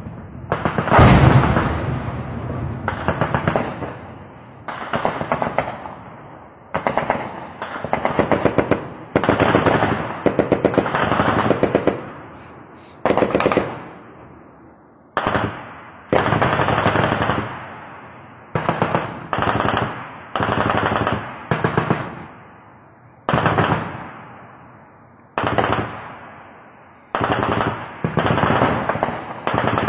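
Automatic weapons firing in repeated bursts, about twenty of them, each a short string of rapid shots that trails off in a long echo before the next burst starts.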